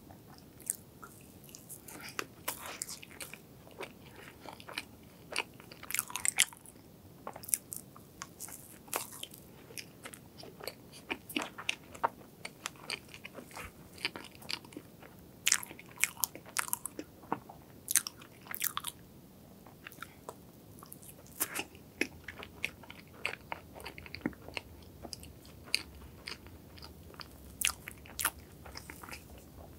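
Close-miked chewing of soft strawberry crepe cake with cream: a steady run of many short mouth clicks and smacks.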